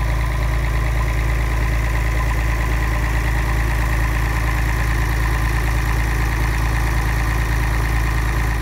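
Tractor engine running at a steady, even speed, with a strong low hum and no change in pitch; it cuts off suddenly just after the end.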